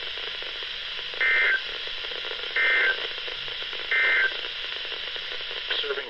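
Weather alert radio playing a NOAA Weather Radio broadcast through its speaker: steady static hiss with three short identical bursts of warbling data tones, about a second and a half apart. The bursts are typical of the SAME end-of-message code that closes an emergency alert.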